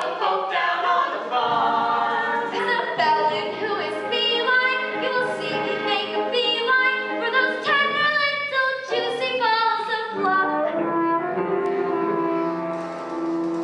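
Musical-theatre song with voices singing over accompaniment, settling into a long held note from about eleven seconds in.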